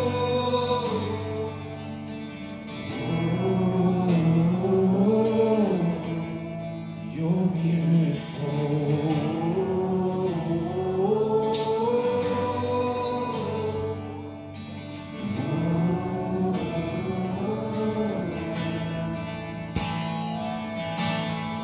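Live worship song: voices singing a slow, gliding melody over guitar chords.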